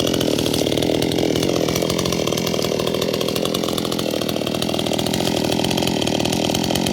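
Chainsaw running steadily while cutting wood, loud and close.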